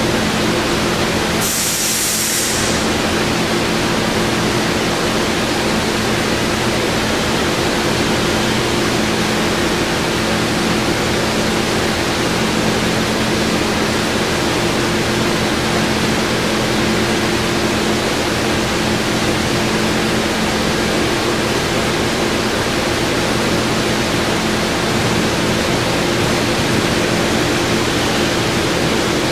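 Kent KGS618 manual surface grinder running: a steady hiss with a low motor hum. A short, sharp high hiss about two seconds in.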